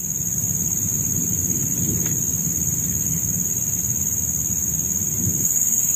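Steady high-pitched drone of forest insects, with a low rumbling noise underneath that swells slightly at the start.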